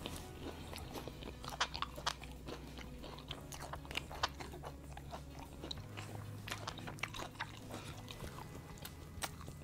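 A person eating crispy fried chicken: close chewing and biting with many irregular crisp crackles as the breaded coating is bitten and pulled apart.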